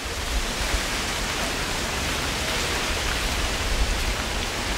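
Strong wind of a dust storm rushing steadily, buffeting the microphone with an uneven low rumble.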